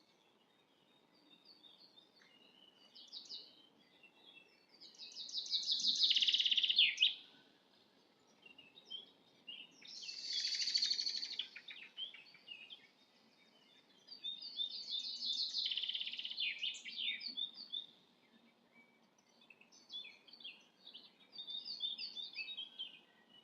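Songbirds chirping and singing, with three louder rapid song phrases of about two to three seconds each and scattered chirps between them.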